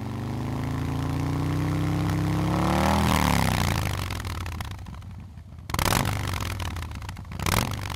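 Motorcycle engine revving and passing by: its pitch rises for about three seconds, then falls away. Two short bursts of noise follow near the end.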